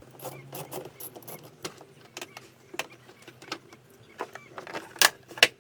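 A run of irregular small metallic clicks and clinks from hand tools working on the car's battery earth (negative) terminal as it is disconnected, with two louder knocks near the end.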